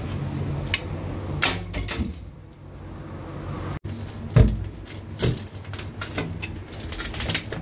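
Steel chequer-plate drain cover being worked at with a metal tool: a run of sharp metallic knocks and scrapes, the loudest about halfway through.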